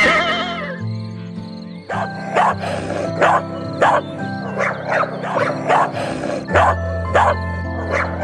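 Background music with held chords under animal calls: a whinny trails off in the first second, then a series of short barks starts about two seconds in and repeats roughly every two-thirds of a second.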